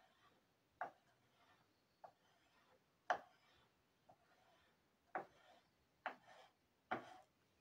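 Small hand tool scraping across the surface of a wax carving block in short, faint strokes, about one a second.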